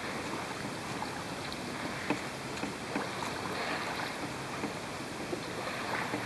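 River water lapping and trickling around a kayak: a steady wash of water noise with faint clicks and small splashes now and then.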